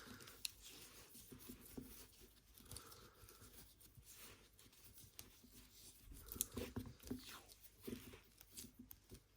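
Insulation tape being pulled off the roll and wrapped around a rope: faint crackling and scattered small clicks, a few sharper ones in the second half.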